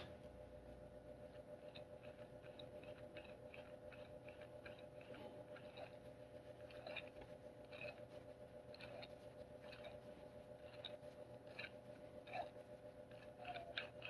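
Worn front drive hub of a 2014 Chevrolet Impala turned by hand: its failing internal wheel bearing makes a faint, small rough clicking, the sign that the hub bearing is worn out.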